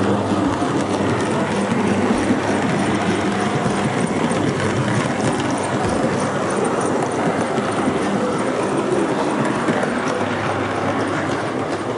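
7mm-gauge model steam locomotive and coach running steadily along the track, with the rolling rumble and clatter of wheels on rail.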